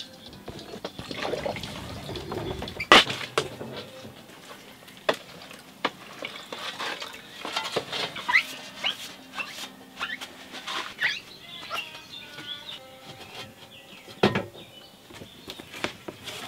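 Scattered clicks, knocks and rustles from glass plates, bottles and trays being handled, with a sharp knock about three seconds in and another near fourteen seconds.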